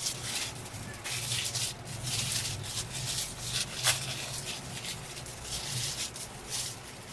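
Rustling and handling noises from office chair parts being worked on, in short hissy bursts, with one sharp click about four seconds in and a faint steady hum underneath.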